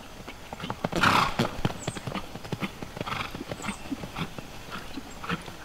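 A horse trotting on sand arena footing: a run of regular hoofbeats, with one short, louder rush of noise about a second in.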